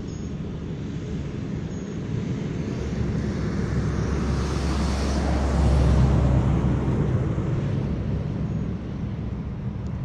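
A jet aircraft passes over, its noise swelling to a peak about five to six seconds in and then fading, over a steady low rumble.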